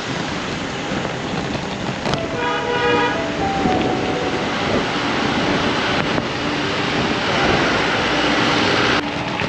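Steady rushing road noise, with a vehicle horn honking briefly about two and a half seconds in.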